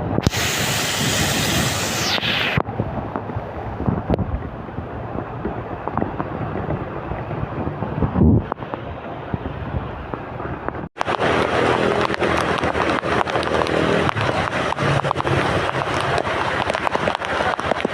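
Heavy rain falling in a steady, dense hiss. A brief sharper hiss comes at the start and a low thump about eight seconds in, and just before halfway the sound cuts off abruptly and resumes as brighter, denser rain.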